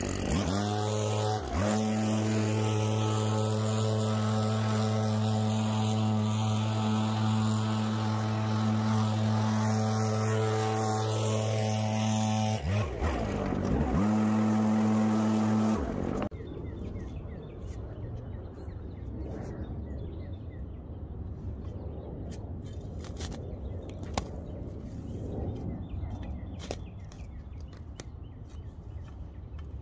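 Gas chainsaw's small two-stroke engine running at high, steady revs, dropping in pitch briefly twice and picking back up, then cutting off suddenly about sixteen seconds in. After that, quiet outdoor background with scattered light knocks.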